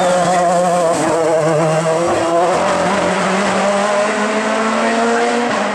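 Hill-climb race car's engine running loud at high, steady revs, with tyres squealing.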